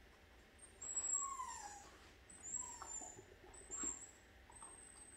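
Puppy whining: a few short, high-pitched whines, the first and longest falling in pitch.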